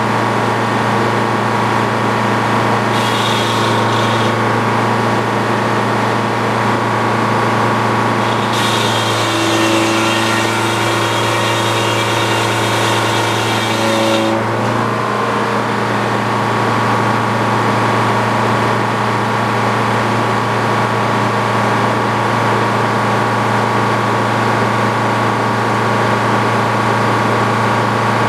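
Engine driving an antique Frick sawmill, running steadily, with the circular saw cutting through a pine log for several seconds in the middle, adding a harsher, higher sound that stops sharply.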